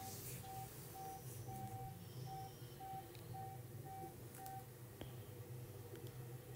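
Faint electronic beeping: a short beep at one steady pitch repeated about twice a second, some ten times, stopping about two-thirds of the way through. A single faint click follows near the end.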